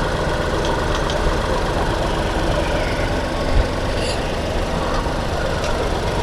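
Petrol Tata Tiago engine idling steadily after a replacement radiator fan motor has been fitted, running while it warms up.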